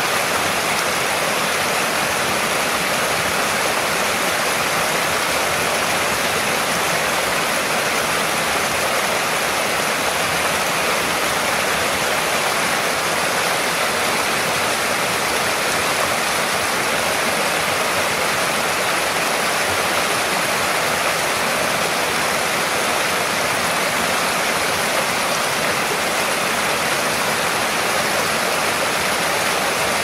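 Waterfall: a steady, unbroken rush of falling and splashing water.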